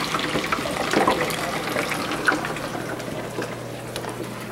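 Hot oil in a deep fryer bubbling and crackling steadily, with a few sharper pops; the bubbling is moisture cooking out of the food as it fries.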